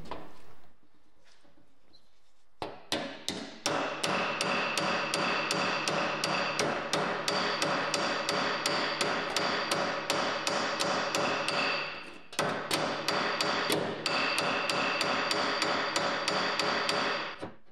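Hammer tapping the bent rim of a sheet-metal pizza-oven panel against the steel anvil of a bench vise to straighten it. The quick, even blows come about four or five a second with a metallic ring. They start a few seconds in and pause briefly about two-thirds of the way through.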